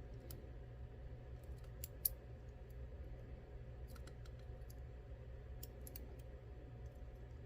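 Scattered small sharp metal clicks and ticks as a tool works a driver pin out of a Mul-T-Lock MT5+ lock housing, the loudest about two seconds in. A steady low hum runs underneath.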